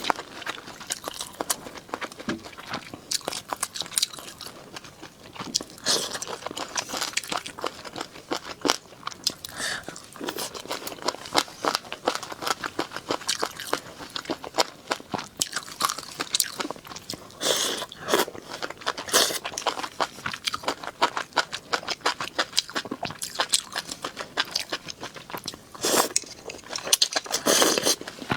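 Close-miked eating: chewing and crunching of food, a dense run of small crisp clicks, with several louder crunches in the second half.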